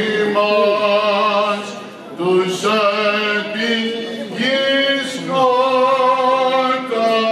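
Male chanters singing Greek Orthodox Byzantine chant unaccompanied, in long held notes with short breaks between phrases.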